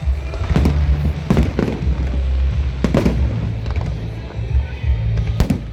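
Aerial fireworks bursting: several sharp bangs spaced irregularly, two close together about a second and a half in and another near the end, over a continuous low rumble.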